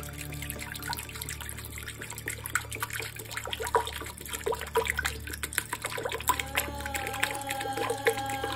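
Water poured from a plastic bottle into a stainless steel pressure cooker, splashing and trickling onto the pork ribs and the pot's bottom.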